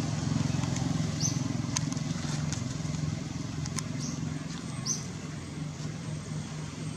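A vehicle engine running steadily as a low hum, with a short high chirp repeating every second or two over it.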